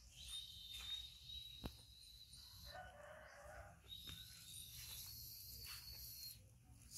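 Faint, quiet outdoor ambience: a rooster crows once in the distance about three seconds in, over a steady high-pitched whine, with a single sharp click a little before it.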